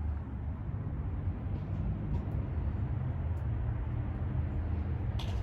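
Steady low rumble of road traffic passing on a nearby boulevard.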